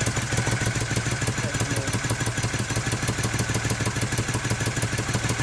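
Moto Guzzi Ambassador's air-cooled 90° V-twin, freshly rebuilt with new rings and bored out to about 950 cc, running at a steady fast idle with even, regular firing. It is held up by the throttle slide screws, turned all the way up because the new engine is still tight.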